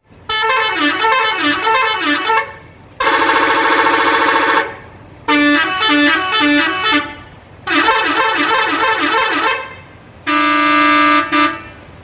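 A bus telolet horn, a multi-trumpet musical air horn, sounding five short tunes one after another. Each tune lasts about one and a half to two seconds, with pitches stepping up and down, and the last is a single held chord. The horn is newly working after the coach's rebuild.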